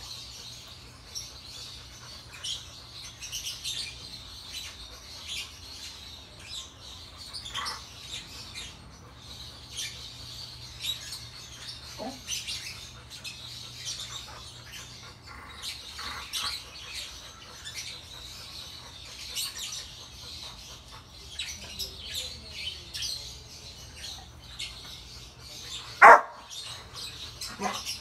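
A Rottweiler barks once, loudly, near the end. Small birds chirp throughout.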